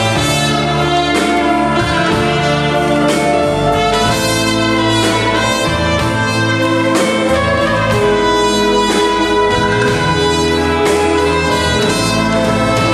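Live band playing an instrumental break, a trumpet playing over drum kit and strings with a steady beat.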